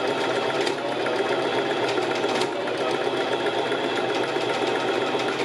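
Sewing machine running steadily, with a weird clicking in its rhythm. The clicking is the sign of the thread bunching into a bird's nest under the fabric.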